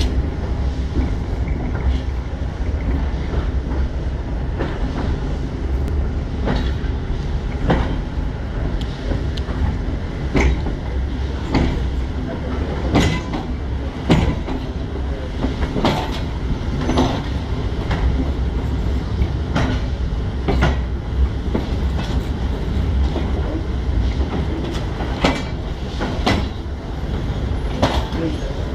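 Railway carriage rolling over yard track, a steady low rumble with irregular sharp knocks of the wheels over rail joints and points every second or two.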